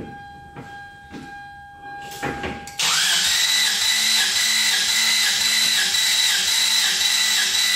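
The 1996 Toyota 4Runner's 3.4-litre 5VZ-FE V6 being turned over by its starter motor, a steady whining crank with an even rhythm that starts suddenly about three seconds in. The engine does not fire, because the EFI fuse is pulled for a compression test on cylinder one.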